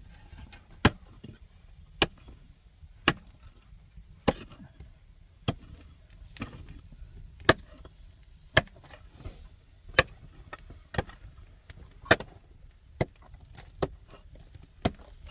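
Regular heavy blows of a hand tool, about one a second, each a single sharp strike.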